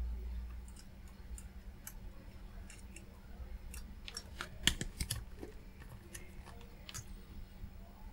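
Multimeter probe tips tapping and scraping on a circuit board's pads and ground points during a continuity check: scattered faint small clicks, the sharpest pair about halfway through.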